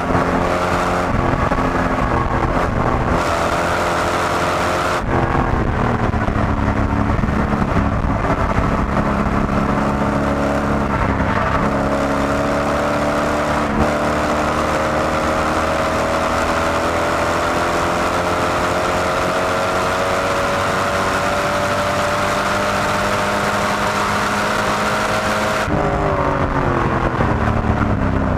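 A C5 Corvette Z06's LS6 V8 heard from inside the cabin, running hard at speed on track. The pitch drops and climbs again about five seconds in, then rises slowly for a long stretch under full throttle, and falls near the end as the throttle is lifted.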